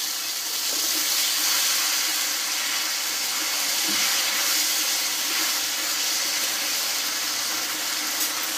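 Hot oil sizzling steadily in a karai (wok) as a ground spice paste is added and stirred in with a spatula: a continuous frying hiss.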